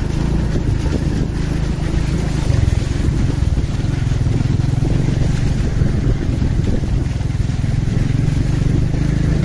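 Motorcycle engine running steadily while the bike is ridden through shallow muddy water running down a dirt road.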